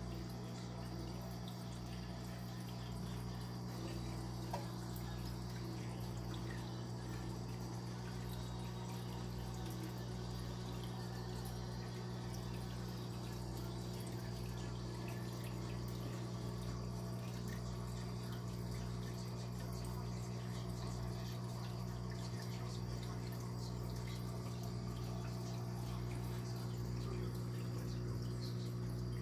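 Aquarium filter or pump running: a steady low electrical hum with water bubbling and trickling over it.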